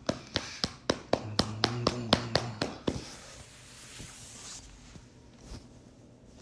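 A hand patting a golden retriever's back in a steady rhythm, about four pats a second, over a low steady hum. The patting stops about three seconds in and gives way to a soft rustle of fur, then a couple of single taps near the end.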